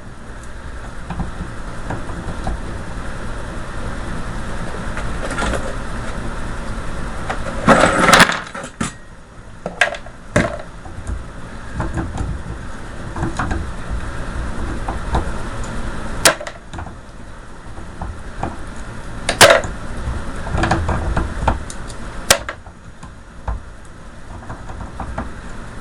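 Side cutters working copper windings out of an automotive starter motor armature: scattered metallic clicks and clinks, the loudest a short clatter about eight seconds in, over a steady low hum.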